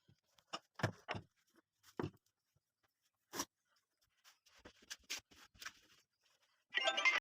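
Scattered light knocks and clicks of objects being handled, then a short, louder clatter near the end.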